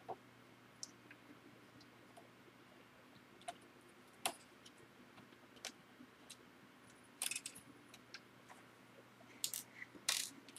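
Faint, scattered clicks and taps of a small screwdriver working screws out of a laptop's plastic case, with a short cluster of clicks about seven seconds in and more near the end.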